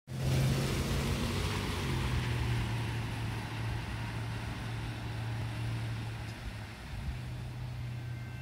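A steady low engine hum with a wide rushing noise that slowly fades.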